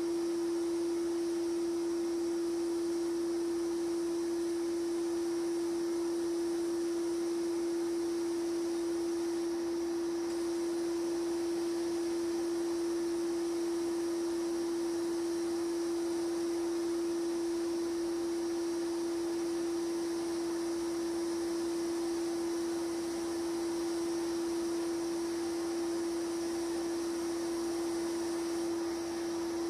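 Sandblasting cabinet at work: a steady single-pitched hum over a soft hiss of air and abrasive from the blast gun.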